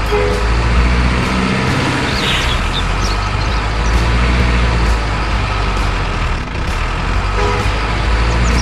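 Heavy diesel truck engine sound: a steady low rumble, with a short hiss and squeaks about two and a half seconds in.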